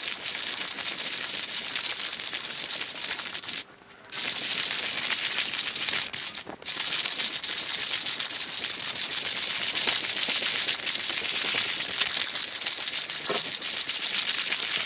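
A Turkish cylindrical hand coffee grinder crushing whole roasted coffee beans as its handle is cranked: a continuous dense crunching and crackling, broken by two short pauses, one near four seconds in and one near six and a half.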